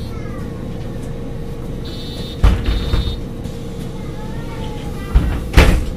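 LPG-fuelled MAN NG 273 articulated city bus idling with a steady rumble and hum. A pair of short high beeps sounds about two seconds in, followed by a loud sudden thump with a hiss, and two more loud thumps with hissing come near the end.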